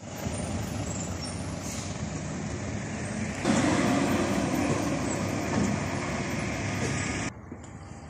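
Diesel bus engine running, with road noise; the sound gets louder about a third of the way in and drops away sharply near the end.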